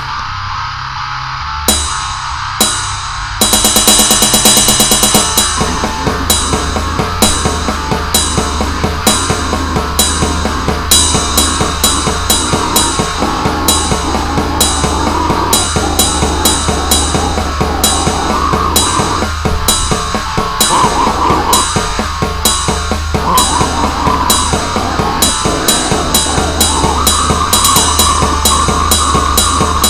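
Goregrind music: a few sparse hits, then about three seconds in the full band comes in with fast, dense drumming, cymbals and heavily distorted guitar.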